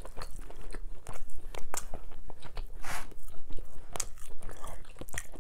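A person chewing and biting roast chicken with its skin, close to the microphone: an uneven run of short wet clicks and crunches.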